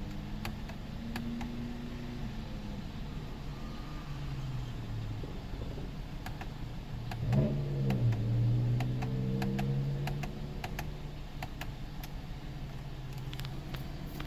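2004 Cadillac SRX engine running at a rough idle, its pitch wavering unsteadily, with a louder surge about halfway through before it settles back. Scattered light clicks are heard throughout.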